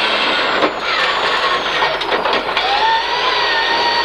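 Rally car engine heard from inside the cabin of a rear-wheel-drive Peugeot 306, accelerating hard on a loose forest stage, with a few sharp knocks. About two and a half seconds in, the engine note climbs steadily as it pulls through a gear.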